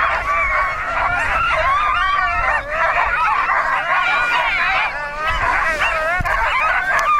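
Many sled dogs yelping, barking and howling at once in a continuous, overlapping din, the excited noise of teams waiting to run at a race start.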